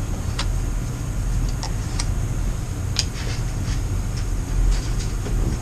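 A steady low mechanical hum with a few faint, light clicks over it.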